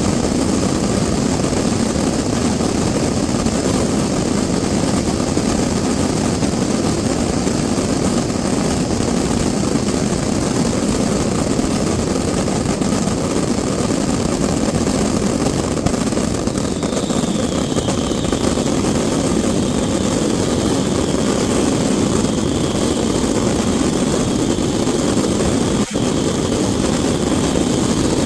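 Dense fireworks barrage, its reports fused into a loud, continuous roar, with a faint wavering whistle entering just past the halfway point.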